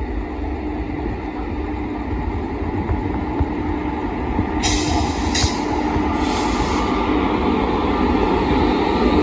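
Electric locomotives hauling a train past: a steady running rumble with a constant hum that grows slowly louder. Two short bursts of hissing come about five and six seconds in.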